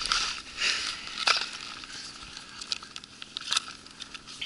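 Boots crunching and scuffing on lake ice strewn with broken ice chips, an irregular run of crackles with small glassy clinks of ice fragments. The loudest crunch comes a little over a second in.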